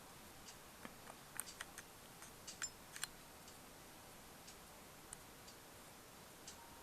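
Near silence with faint scattered clicks of camera handling, fingers working the camera's controls while it is held zoomed in. A faint steady tone comes in near the end.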